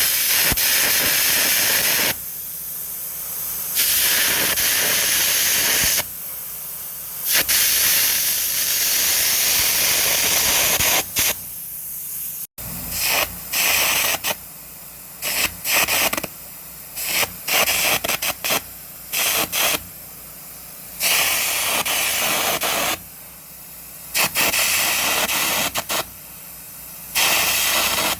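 Air carbon arc gouging with a 3/16-inch carbon at about 250 amps: the arc and the compressed-air jet blasting out weld metal in loud hissing passes of a few seconds, stopping and starting, then from about halfway through in a run of short bursts. Between passes a quieter steady running noise remains.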